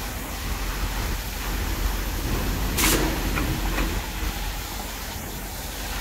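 Steady low rumble and hiss of construction-site machinery, with one sharp knock about three seconds in and two fainter clicks after it.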